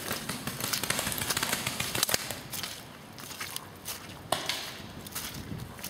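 Footsteps rustling and crunching through dry fallen leaves, densest in the first half, with a few sharp pops of paintball markers firing scattered through.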